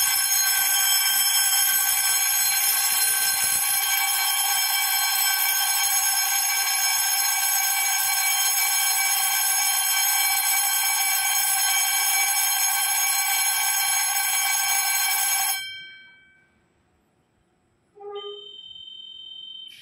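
Station platform departure bell ringing continuously, a loud steady electric ring that stops suddenly about 15 seconds in: the signal that the train is about to close its doors and leave. A short electronic tone sounds near the end.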